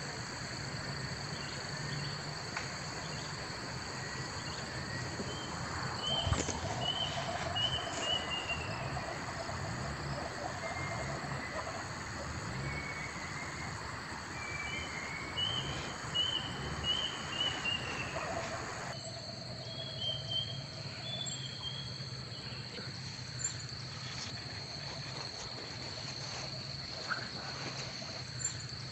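Insects trilling steadily, with a few runs of short chirps about a quarter and about half way through.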